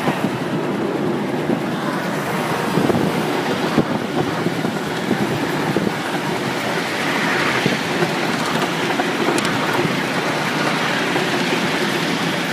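Train in motion, heard from aboard: the steady running noise of wheels on the rails, with a few sharp clicks.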